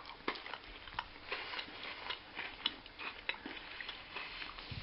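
Faint, irregular small clicks and crunches of someone chewing a chocolate-coated Tim Tam biscuit.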